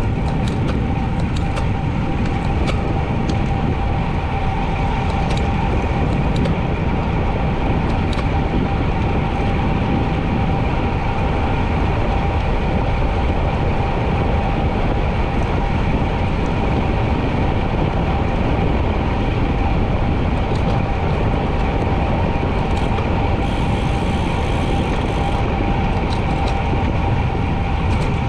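Wind rushing over an action camera's microphone while riding a road bike at speed, with the tyres humming on pavement and a steady whine running throughout.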